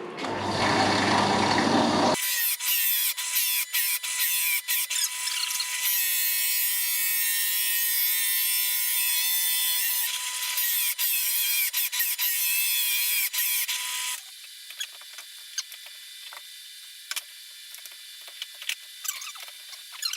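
Drill fitted with a plug-cutter bit boring plugs out of a piece of oak: a steady running whine and cutting noise for about twelve seconds, stopping abruptly, followed by quieter scattered clicks and scrapes of handling wood and tool.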